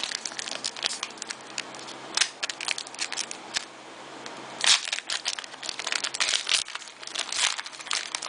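Foil wrapper of a Pokémon trading-card booster pack crinkling and crackling as it is handled and opened, with louder crackles now and then.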